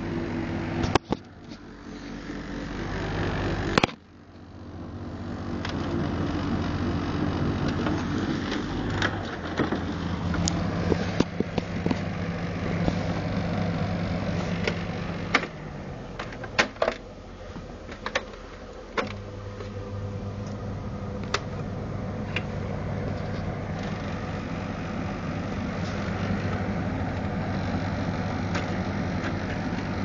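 Argos Value dehumidifier running with a steady mechanical hum. After a few clicks near the start it cuts out and then builds back up over a couple of seconds. The hum drops lower for a few seconds midway, and scattered clicks and knocks come on top of it.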